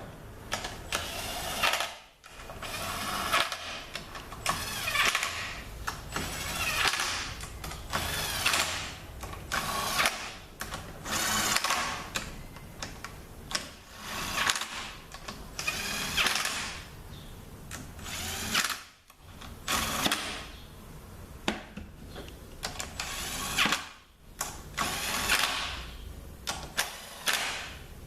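Cordless power drill/driver run in repeated short bursts, its motor speeding up and winding down each time, as it runs down the Torx bolts of a ZF 6HP26 transmission's oil pan.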